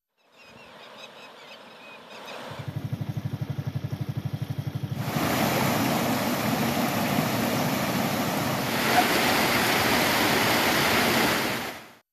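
Overflow water from a full dam rushing down a rocky stream channel, a loud steady rush from about halfway through until it cuts off just before the end. Before that, a low rapid throb of about ten pulses a second runs for a couple of seconds.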